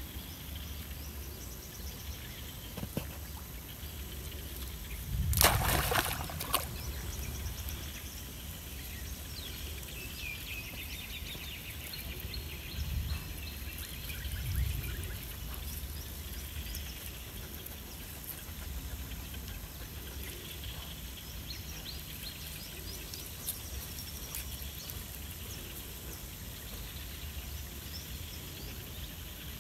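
A monkey splashing and swimming in a shallow muddy pond, with one loud splash about five seconds in and smaller sloshes later. Birds chirp faintly.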